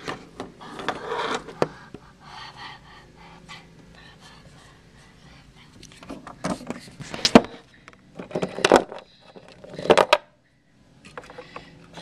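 Close handling noise from the camcorder being gripped and moved: rustling, clicks and knocks of hands on it, with breathy, panting voice sounds. The sound cuts out abruptly near the end.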